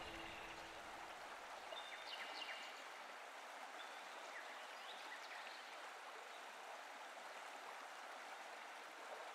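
Faint outdoor ambience: a steady soft hiss with a few brief high chirps in the first half.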